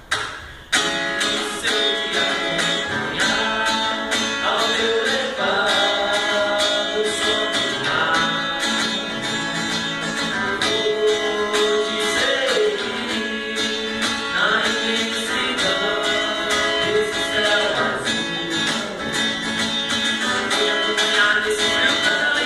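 Hip-hop track played live: a guitar melody over a steady beat, with a sung voice over it. It starts about a second in, after a few sharp taps.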